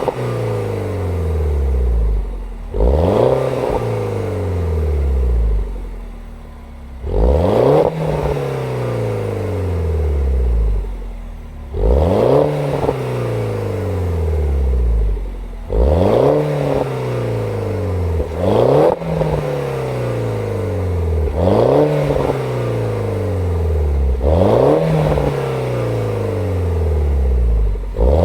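Warm 2007 Mini Cooper S R56's turbocharged 1.6-litre four-cylinder, on its stock exhaust, blipped from idle about eight times. Each rev climbs sharply and then falls back to idle over a couple of seconds.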